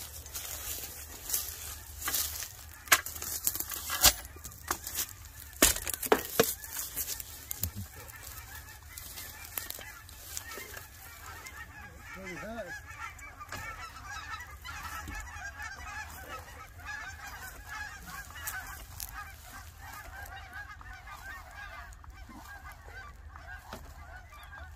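A flock of geese honking, many calls overlapping into a dense chatter that fills the second half. In the first few seconds there is a run of sharp knocks and clanks, the loudest sounds.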